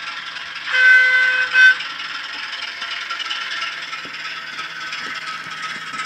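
Hornby HM7000 sound decoder playing a British Rail Class 08 diesel shunter sound through a model locomotive's small speaker: about a second in, the horn sounds a held blast and then a short second blast, over the steady running of the diesel engine.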